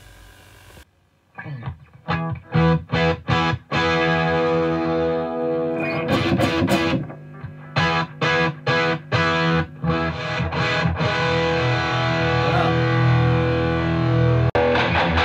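Electric guitar, a Gibson SG played through a Ryra Klon overdrive into a 1969 Marshall JMP 50 with a Greenback 12-inch speaker, playing crunchy distorted classic-rock chords. It plays short stabbed chords alternating with held, ringing chords, heard through an iPhone's microphone. Near the end the sound switches abruptly to a brighter recording.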